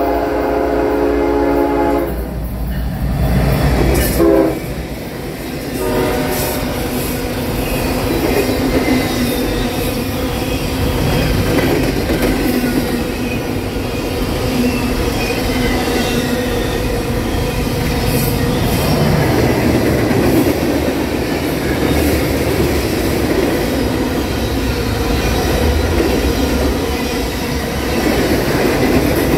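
Norfolk Southern freight train's air horn sounding a chord for about two seconds, then two short blasts around four and six seconds in. After that comes a long steady passing rumble with wheel clatter from the train's double-stack container cars and boxcars.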